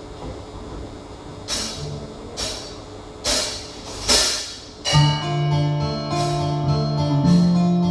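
Live rock band: four evenly spaced cymbal strikes on the drum kit, then electric guitars and keyboard come in together about five seconds in with held, sustained chords.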